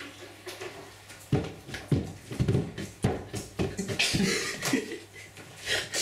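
Irregular thumps of hands and feet on carpeted stairs as someone clambers quickly up them, starting about a second in, with some vocal noises among them.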